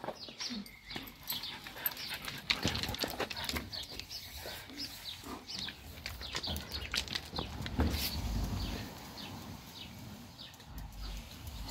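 A dog's sounds mixed with the clicking and crunching of loose river stones as a large dog walks over them.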